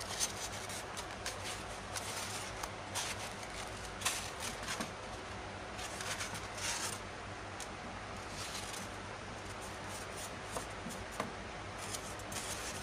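Polystyrene foam (thermocol) sheets being handled and folded by hand: irregular short rubbing and scraping sounds of foam on foam. A steady low hum runs underneath.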